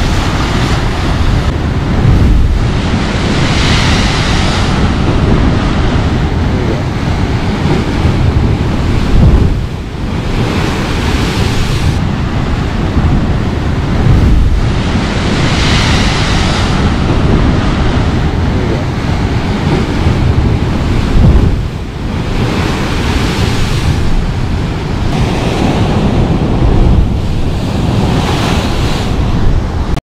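Heavy ocean surf crashing and churning into a rocky chasm, a loud continuous rush that swells every several seconds as waves surge in and throw up spray. Wind rumbles on the microphone.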